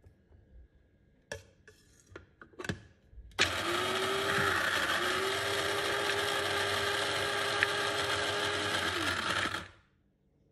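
Small electric blade grinder grinding almonds: the motor runs steadily for about six seconds, dips and picks up again about a second after starting, then winds down when released. A few knocks before it starts, as the grinder is handled and closed.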